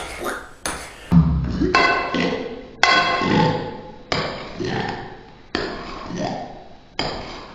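A metal spoon clinking against a bowl as slime is stirred, then background music with a bass line and a ringing note struck about every second and a half.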